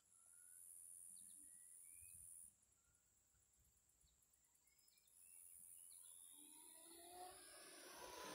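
Near silence with faint bird chirps and a high insect hiss that starts and stops. Near the end the sound of a fast vehicle, most likely the Arrma Limitless RC car on its 8S speed pass, comes in rising in pitch and growing louder as it approaches.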